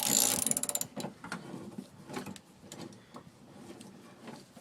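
Socket ratchet wrench tightening a bolt on a truck's side-step bracket: a rapid run of pawl clicks for about the first second, then scattered fainter clicks and knocks of the tool on the bolt and bracket.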